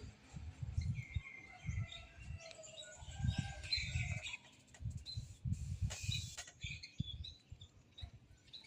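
Small birds chirping and trilling, with wind gusting against the microphone in irregular low rumbles.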